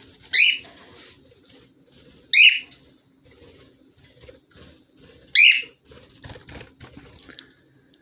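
Cockatiel calling: three loud, short, high-pitched whistled calls, the second about two seconds after the first and the third about three seconds later.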